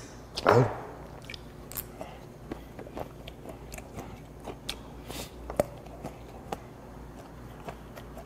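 A man chewing and eating, with scattered small clicks of chopsticks and dishes. About half a second in comes one short falling vocal exhale after a drink of soju.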